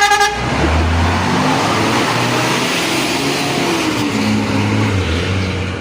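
A bus's multi-note horn cuts off a moment in, then the bus's diesel engine pulls away under load, its low note stepping up and down as it accelerates, over a steady rush of engine and road noise.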